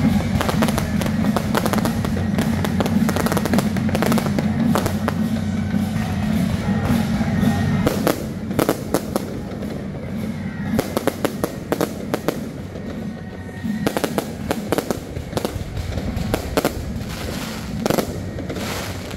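An aerial fireworks display firing continuously, with rapid bangs and crackles from bursting shells and rising comets. The bangs come thickest about eight seconds in and again near the end, over music playing underneath.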